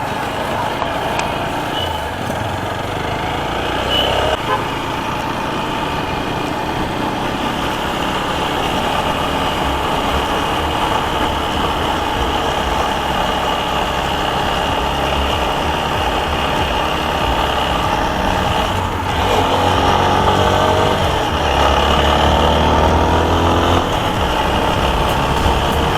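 Single-cylinder engine of a TVS Apache RTR 160 4V motorcycle running under way, with steady road and wind noise. About twenty seconds in the engine note climbs as it accelerates.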